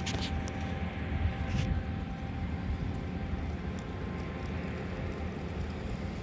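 Distant street sweeper's vacuum fan and a wood chipper running at the same time, blending into one steady machine drone. A thin steady whine sits in it and fades out about halfway through.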